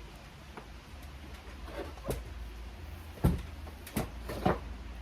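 A few sharp plastic clicks and knocks from handling a headlight unit while unclipping its rubber trim and plastic clips; the loudest knock comes a little after three seconds in.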